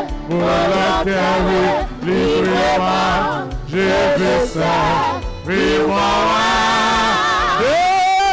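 A man singing a worship song into a microphone over instrumental backing, with long held notes and vibrato.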